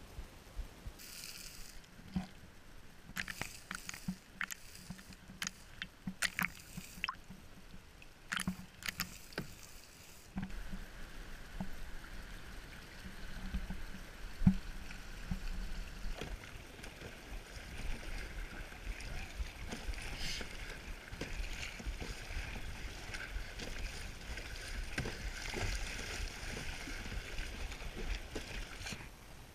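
Kayak on a flowing river: paddle strokes splashing, with light knocks on the hull, then from about ten seconds in the steady rush of moving water around the boat.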